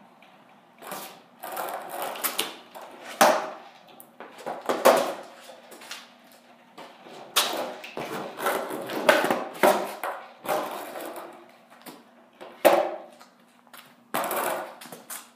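Skateboard clattering and its wheels rolling in short bursts, roughly one every second or two, as a rider attempts a trick.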